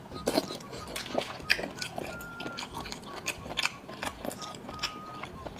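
Close-miked chewing and biting of seafood in sauce: a run of irregular wet clicks and crunches.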